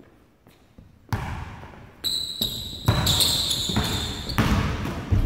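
Basketball dribbled hard on a hardwood gym floor, starting about a second in, with a high whistle blast about two seconds in and another high tone shortly after as the drill starts.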